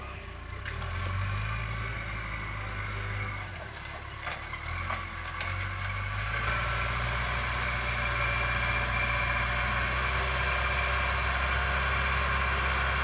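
A large engine running, its pitch rising and falling for the first few seconds, then settling into a steadier, louder run from about six and a half seconds in.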